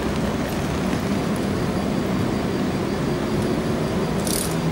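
Tatra T3 tram rolling slowly on street track toward a stop: a steady low hum of its running gear and motors over city background noise, with a faint thin high whine from about a second in and a short hiss near the end.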